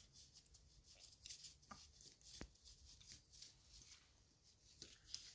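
Near silence, with faint rustling of tissue and a few light clicks as hands wipe and handle the metal end housing of an electric fan motor. One sharper click about two seconds in.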